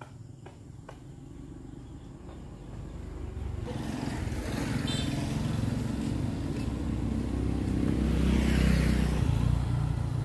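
A motor vehicle passing on the road, growing louder from a few seconds in, loudest near the end and then starting to fade. A few light footsteps are heard at the start.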